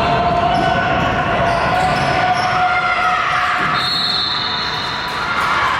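Basketball game on a gym court: a ball bouncing and dribbling on the floor, with players' voices in the background and the echo of a large hall.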